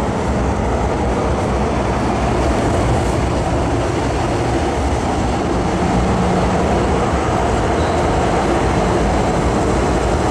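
First-generation MTR Kwun Tong Line M-Train (electric metro train) running through the station without stopping: a steady rumble of wheels and traction gear that grows slightly louder a couple of seconds in.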